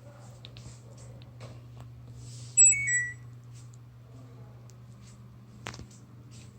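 A short electronic chime of three tones stepping down in pitch, about two and a half seconds in, over a steady low hum and a few faint clicks.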